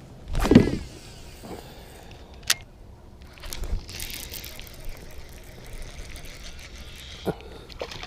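Water splashing and sloshing beside a kayak as a small fish is handled, with a few sharp knocks and clicks. The loudest splash comes about half a second in.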